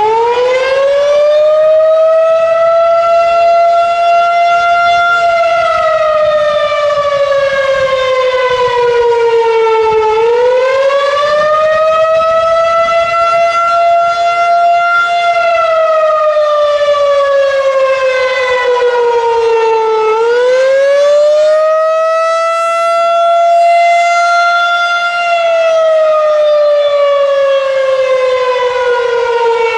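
Federal Signal 2001-SRN electromechanical warning siren sounding the attack signal, loud. Just past its wind-up, it rises and falls in pitch in slow cycles about ten seconds long, three in all: a quick climb, a short hold at the top, then a long slide down.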